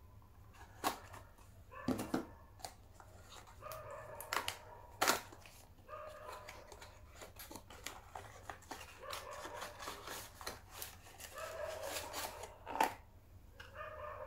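A charger's retail box and packaging being handled and opened by hand: scattered clicks, taps and rustles, with a sharper snap about five seconds in. Short pitched sounds recur faintly in the background.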